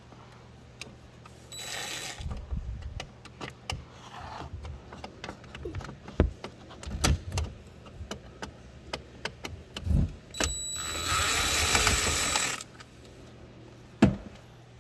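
Cordless DeWalt drill/driver running in two short spurts on the screws of a metal cover plate, a brief one about a second and a half in and a longer one of about two seconds later on, each with a thin high whine. Clicks and knocks of tool and plate handling between them, and a sharp knock near the end.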